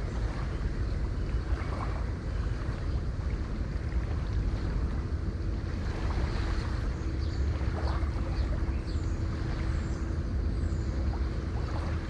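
Sea waves: a steady rush of surf with a heavy low rumble.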